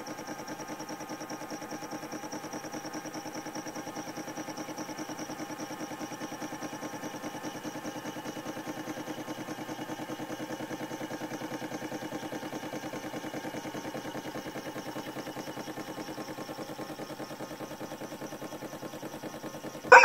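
Battery-powered toy washing machine running, its small electric motor spinning the drum with a steady whir and a fast, even rattle.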